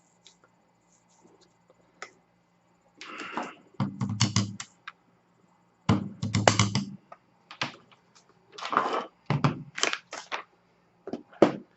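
Irregular clicks, knocks and scraping from handling a small blade coffee grinder and its ground coffee, with two heavier knocks about four and six seconds in; the grinder's motor is not running.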